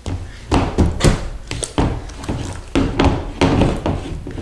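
Irregular knocks and thumps, several a second, from hands working slime in a bowl and the bowl bumping on the table.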